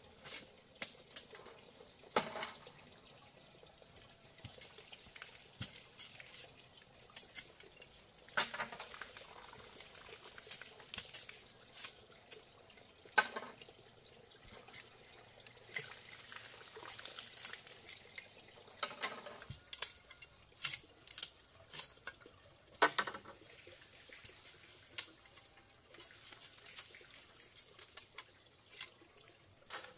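Water splashing and dripping, with many scattered sharp clinks and knocks of objects being handled.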